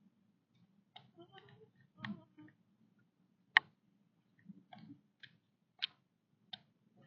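Deer chewing apples: a run of irregular sharp crunches, about ten, spaced unevenly over a faint low hum.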